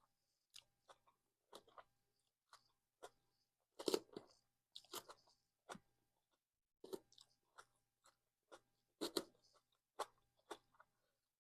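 A person chewing a mouthful of salad close to the microphone: irregular crunches and wet mouth clicks, with a few louder bites in the middle and near the end.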